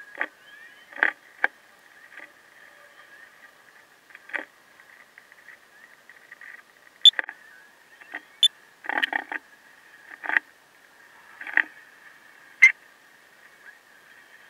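Sped-up household sound of someone painting and moving about. It is a run of short, irregular knocks, clicks and brief scrapes over a faint steady high hum.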